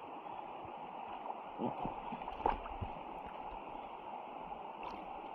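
Stream water running steadily over rocks, with a few faint splashes and knocks in the water partway through.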